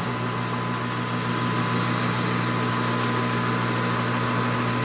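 Metal lathe running at a slow spindle speed of about 360 rpm, a steady motor and drive hum with a thin high whine, run slow to get its oil circulating.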